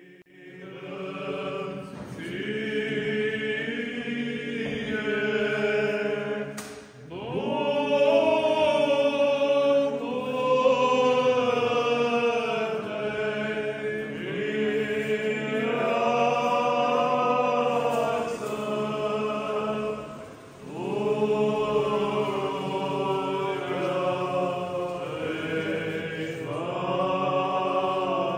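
Choir chanting in the Orthodox style: long sung phrases moving over a steady held low note, with brief breaks about seven and twenty seconds in.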